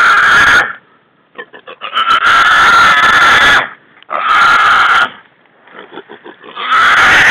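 Wild hog squealing in loud, drawn-out squeals, each up to about a second and a half long, repeating about every two and a half seconds. These are the screams of a hog that has been caught.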